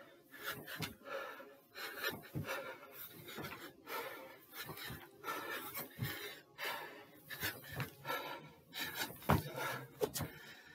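A man panting hard from jumping exercise, in quick repeated breaths, with several dull thuds of his feet landing on a stair step; the loudest thud comes near the end.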